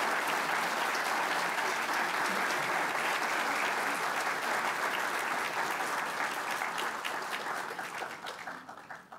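Audience applauding, a steady clatter of many hands that tapers off and dies away near the end.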